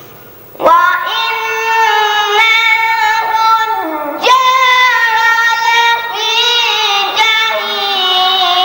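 A boy's high voice reciting the Quran in melodic tilawat style, drawing out long held notes. He starts about a second in and takes short breaths between three phrases.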